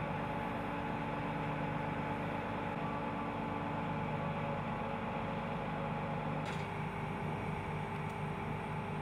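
Mobile crane's diesel engine running steadily during a heavy lift, a low hum with a steady mid-pitched note over it, the pitch shifting slightly about six and a half seconds in.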